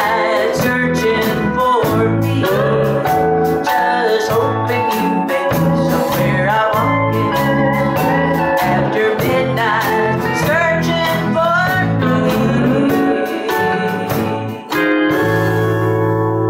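Country band playing live, with drums keeping a steady beat under pedal steel and electric guitars. About 15 seconds in, the live playing cuts off and gives way to a sustained held chord.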